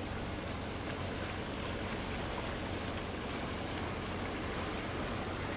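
A boat's engine running steadily with a low hum, under a constant rush of water and wind.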